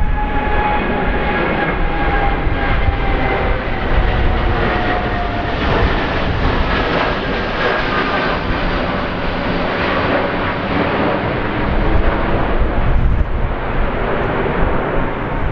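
Boeing 787 airliner's twin jet engines at climb power as it climbs away overhead just after takeoff. A loud, steady engine noise carries whining tones that slowly fall in pitch as it passes and recedes.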